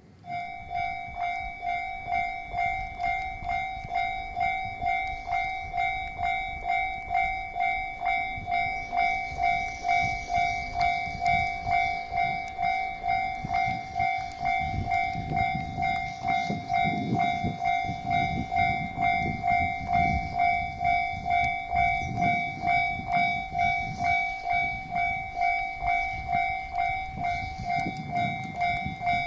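Japanese level-crossing warning bell ringing in a steady, even rhythm of about two strikes a second, as a JR Shikoku 1200-series diesel railcar passes. The railcar's engine and wheels rumble under the bell from about halfway through.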